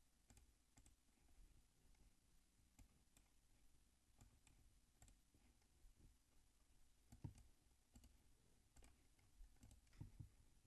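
Faint, scattered computer mouse clicks over near silence, a couple of them a little louder about seven and ten seconds in.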